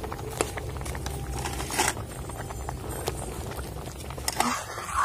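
Payesh (rice cooking in milk) boiling hard in a large aluminium pot, bubbling steadily with many small scattered pops. There is a louder swish near the end.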